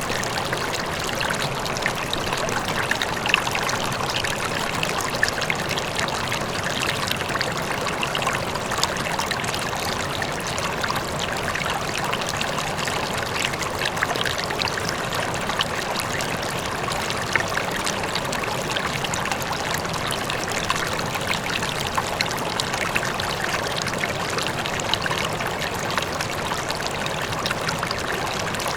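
River flowing steadily, a constant rush of water with small splashes and trickles scattered through it, and a faint waterfall behind it.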